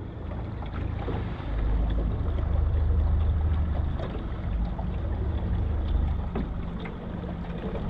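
Outboard motor of a small boat running at low speed, a steady low hum, with wind rumbling on the microphone. The rumble swells about a second and a half in and eases near the end.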